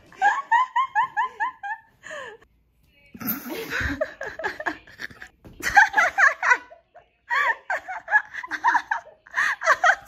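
People laughing in several bouts of quick, repeated high-pitched laughs: one run in the first two seconds, then more bouts from about halfway through.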